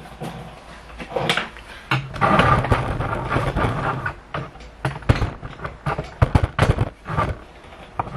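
Rubber door seal and plastic sill trim being pulled and worked off a car's door opening: a rasping scrape about two seconds in, then a run of sharp knocks and clicks.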